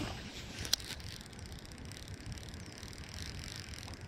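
A cast with a baitcasting rod and reel: a rush of movement as the rod swings overhead, then a single sharp click just under a second in, followed by a faint, softly repeating whir from the reel.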